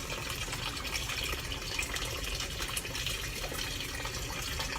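Kitchen tap running steadily into a sink while dishes are washed, with scattered light clinks.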